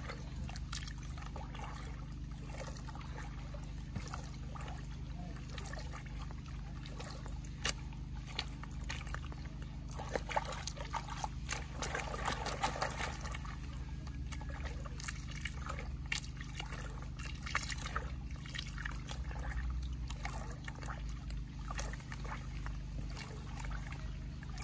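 Muddy water sloshing and trickling as a gold pan is swirled and dipped to wash out sediment, with a cluster of louder splashes about ten to thirteen seconds in. A steady low hum runs underneath.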